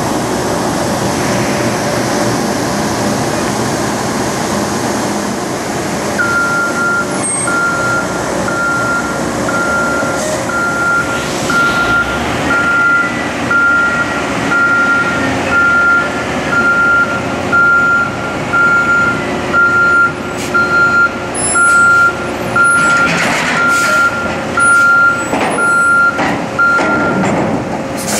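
Steady drone of heavy container-handling machinery, with an electronic warning beeper sounding at one steady pitch, about one and a half beeps a second, from several seconds in until shortly before the end. Near the end, metal knocks and rattles as a shipping container is lowered onto a truck chassis.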